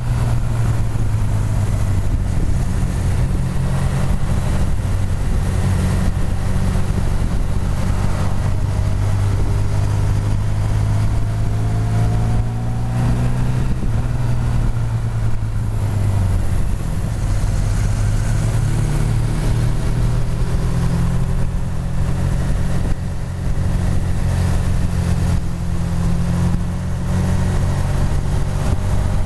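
Motorcycle engine running at road speed, heard from a camera mounted on the bike, with wind and road noise over it; the engine note rises a couple of times as it accelerates.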